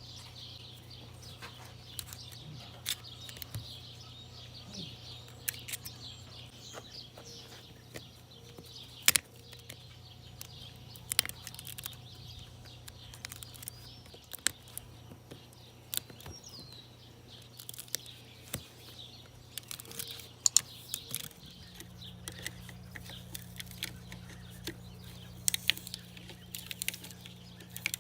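Scattered sharp clicks and clinks of hand tools and plastic and metal parts as an electric leaf blower is dismantled for scrap, over a steady low hum that is joined by a second, slightly higher hum about two-thirds of the way through.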